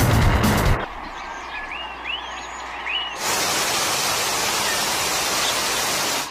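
Steady hiss of heavy rain, starting abruptly about three seconds in and stopping just before the end. Before it, loud music cuts off under a second in, and a few short bird-like chirps sound over a quiet background.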